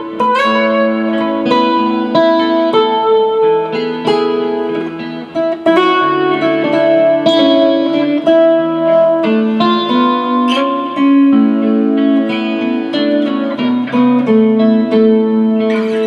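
Martin GPC acoustic-electric guitar played over a looped A major rhythm part: picked single-note melodic lines over held chords.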